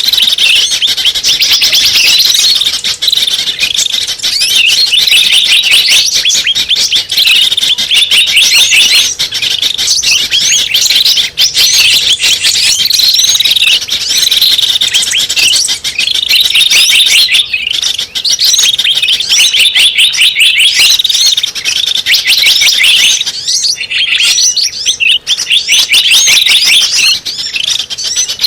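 Bird-lure (pikat) recording of small birds chirping and twittering in a dense, unbroken chorus of rapid high calls.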